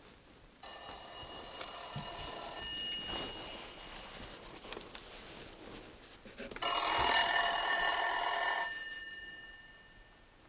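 Old rotary-dial telephone's bell ringing twice. Each ring lasts about two seconds, with a few seconds' pause between them, and the second ring is louder.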